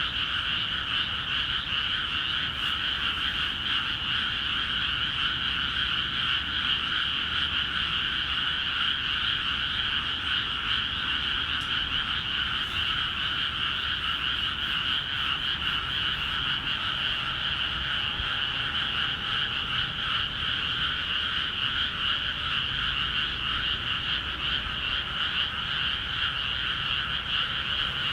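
A dense chorus of many frogs calling at once from flooded rice paddies, steady and unbroken with no pauses: the frogs' breeding chorus that starts once the paddies are filled with water.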